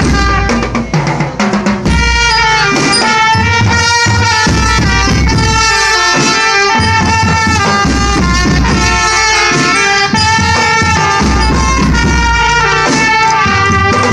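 Marching band playing live: bass drums and percussion beating under a loud melody of held, steady notes from wind instruments. About a second in, a short run of separate drum strokes breaks through before the melody carries on.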